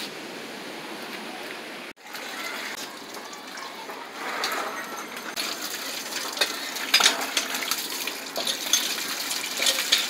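Water gushing and splashing from a cast-iron hand pump onto a concrete floor as the pump handle is worked, with many sharp metallic clinks and clanks. It starts about two seconds in and grows busier in the second half.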